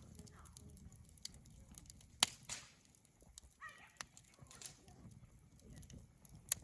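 Wood fire crackling, with a few sharp pops standing out, the loudest a little over two seconds in and another near the end.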